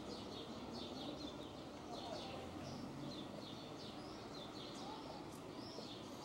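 Small birds chirping over and over in the trees, over a steady low background noise.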